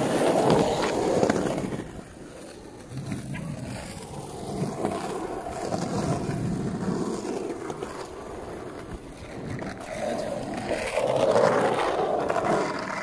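Skateboard wheels rolling over concrete, a rough rumble that swells when a board passes close at the start and again near the end.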